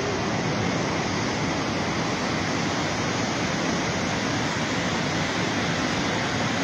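Floodwater rushing in a torrent: a steady, dense rushing noise that does not let up.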